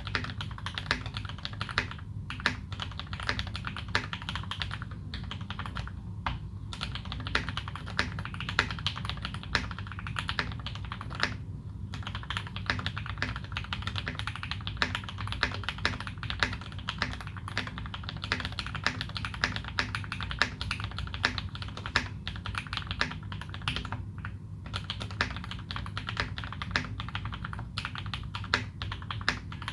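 Steady, fast typing on a Leopold FC660M mechanical keyboard fitted with modded Cherry Retooled Black linear switches and GMK doubleshot keycaps: dense key clacks with a few brief pauses.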